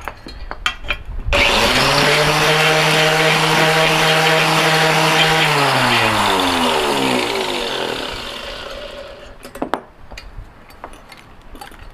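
Mighty Mill gold ore crusher switched on and running at speed, with a noisy rattle as it shreds a piece of electronic connector plastic to free its gold-plated pins. It starts suddenly, runs steadily for about four seconds, then slows with a falling whine as it winds down, followed by a few sharp knocks.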